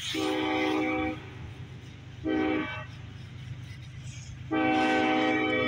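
Approaching diesel freight locomotive's multi-note air horn sounding for a grade crossing: a long blast, a short blast about two seconds in, then another long blast near the end, over a low steady rumble.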